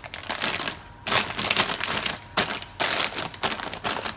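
Plastic bag of dried spinach pasta crinkling and rustling as it is handled, the pasta shifting inside, in three stretches of dense crackling with short pauses between.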